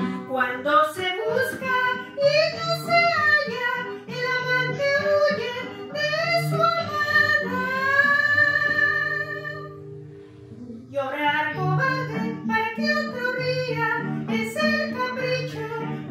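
A woman singing a Spanish-language song into a handheld microphone over guitar accompaniment. Near the middle she holds one long note that fades out, and after a short break she sings on.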